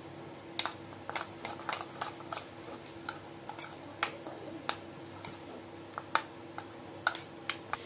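Steel spoon clinking and scraping against a ceramic bowl while stirring a thick, wet paste: irregular sharp clicks, about two or three a second, over a faint steady hum.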